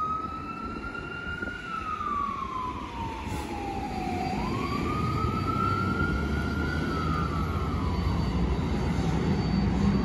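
Fire engine's siren sounding a wail, a single tone that rises quickly and falls slowly about every five seconds, growing fainter as the truck drives away. A steady low traffic rumble runs underneath and gets louder near the end.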